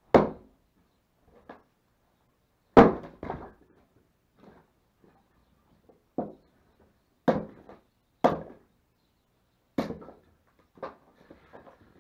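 Axe splitting firewood logs on a wooden chopping block: a series of sharp wooden chops, about eight blows roughly a second apart, the loudest two near the start. Near the end come lighter, quicker knocks.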